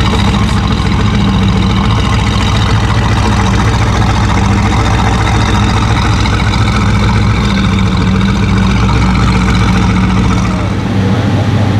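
Mercedes-AMG GT R's twin-turbo V8 idling steadily through an aftermarket Fi exhaust. Near the end the deepest part of the note drops away.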